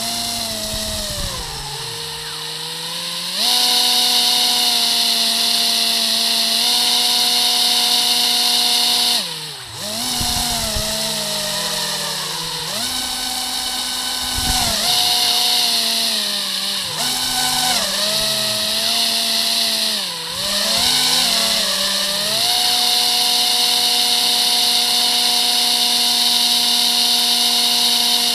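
Two quadcopter motors with propellers driving a small homemade RC airboat, whining loudly at steady speed, with the pitch dropping and climbing back several times in the middle as the throttle is eased off and reapplied.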